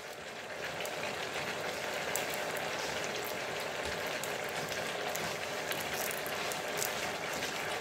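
Thinly sliced beef sautéing in margarine in a frying pan, under a heap of freshly added onion and spring onion, sizzling and bubbling with a steady crackling hiss.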